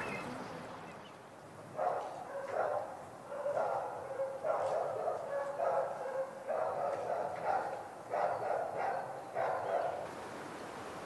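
A dog barking in a long run of short barks, starting about two seconds in and stopping near the end.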